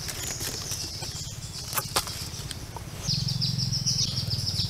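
Forest ambience: a high, rapidly pulsing insect chorus that grows louder about three seconds in with quick stepped falling chirps, over a low fluttering hum, with a few sharp clicks near the middle.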